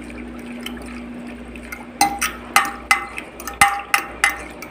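Metal fork stirring a dark sauce with chopped onion and garlic in a glass baking dish. The liquid swishes at first, then from about two seconds in the fork clinks sharply against the glass about eight times, roughly three a second.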